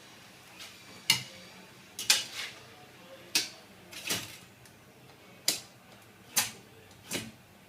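Light metallic clicks and taps of marking-out tools handled against a steel cable tray while measurements are marked along it. There are about eight separate taps at an irregular pace, some in quick pairs.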